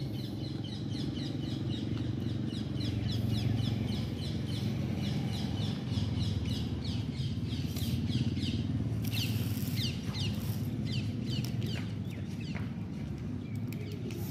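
Small birds chirping in quick, repeated high notes over a steady low rumble.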